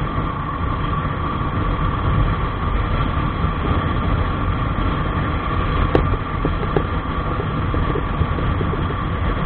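Motorcycle running steadily at road speed, heard from a camera on the bike: a continuous rumble of engine, wind and road noise, with one sharp click about six seconds in.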